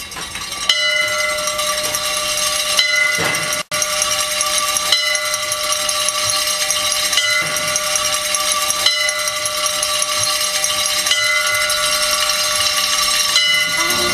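Bells ringing, struck again every second or two so that their tones keep sounding and overlap, with a brief dropout about four seconds in.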